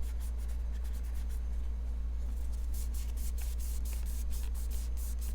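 Quick scratchy rubbing strokes as a knife's handle scale is wiped clean of a spot of goo, coming thick and fast in the second half, over a steady low hum.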